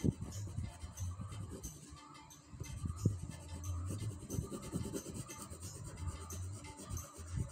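Coloured pencil rubbing and scratching on paper in repeated shading strokes, with a sharper knock at the start and another about three seconds in.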